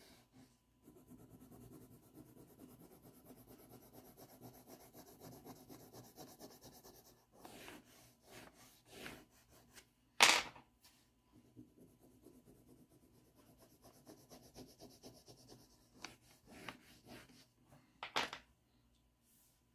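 A green pastel stick rubbing on paper in quick, even coloring strokes for several seconds, then scattered lighter strokes. A sharp knock about ten seconds in and another near the end come from pastel sticks being set down on or picked up from the tabletop.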